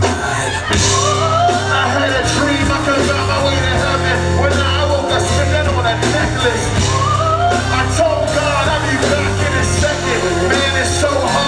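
Live band playing a song with a heavy, sustained bass line and a singer's voice gliding over it.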